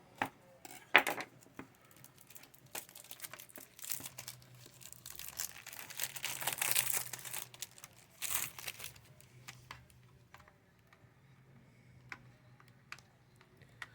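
Plastic shrink-wrap being torn and peeled off a CD case, crinkling and crackling with small clicks of the case being handled. It is busiest and loudest in the middle, then thins to a few light clicks.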